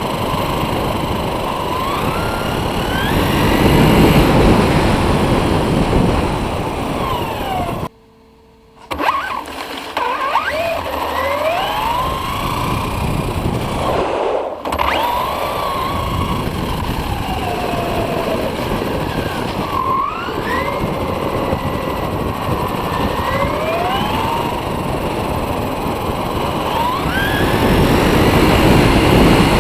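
Electric motor of an H-King Rattler RC car on a 3-cell battery, whining up and down in pitch with the throttle over a loud rush of tyre and wind noise. The sound cuts out for about a second roughly a third of the way through, with a brief dip a few seconds later.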